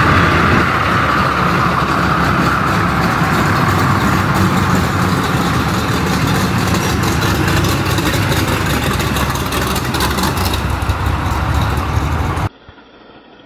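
Engine of a street gasser pickup truck running loud as the truck drives past. Near the end the sound drops off suddenly to a much quieter engine sound.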